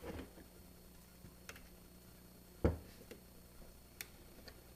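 Screwdriver clicking and knocking against an airsoft AK's receiver while the pistol-grip screw is driven in: a few scattered clicks, the loudest a dull knock about two and a half seconds in.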